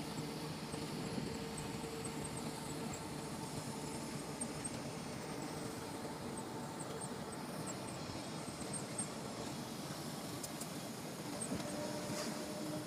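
Steady engine and road noise of a large vehicle, heard from inside its cab while it drives along at an even pace.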